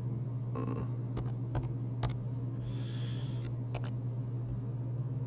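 Computer keyboard keys tapped one at a time, a handful of separate light clicks, over a steady low hum, with a brief soft hiss near the middle.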